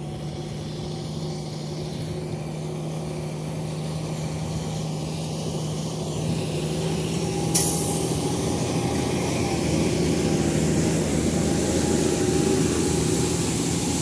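Diesel engine of a heavy Mack cargo truck running steadily as it drives slowly through mud, growing louder as it approaches. About halfway through comes one sudden brief sharp noise.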